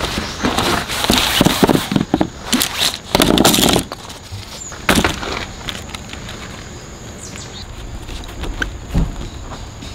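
Rustling and clattering of objects being handled, with several sharp clicks in the first few seconds. After that it goes quieter over a faint steady high hum, with a single thump near the end.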